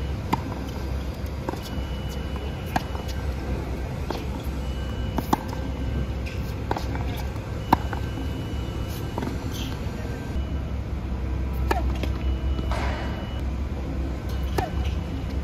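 Tennis balls struck back and forth in a practice rally on a hard court: sharp racket-on-ball pops and bounces, about one every second or so, the loudest near the middle. A serve is hit near the end, over a steady low rumble.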